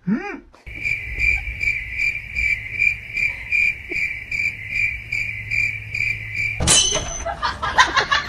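Cricket chirping, a steady high chirp about twice a second, starting and cutting off abruptly as an added comedy sound effect. A brief warbling sweep comes just before it, and a sharp noisy burst follows the cut near the end.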